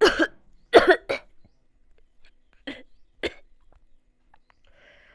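A person coughing in short, sharp bursts: three loud coughs in the first second or so, then two fainter ones about three seconds in.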